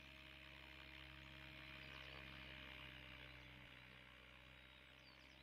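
Faint, steady hum of a distant RC helicopter in flight, its pitch holding constant under a haze of hiss, with a few faint chirps near the end.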